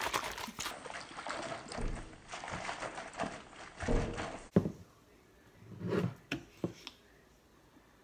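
Plastic shaker bottle of protein shake (milk, water and powder) being shaken hard: rapid sloshing and rattling with a few dull thuds. Near the end, a few short gulping sounds as it is drunk.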